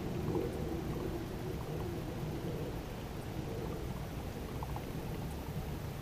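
Steady low noise of a kayak sitting on calm water, with a few faint light ticks.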